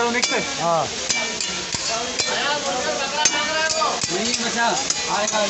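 Metal ladles clinking and scraping against karahi woks as curries cook over a wood fire, with a light sizzle. People's voices talk in the background.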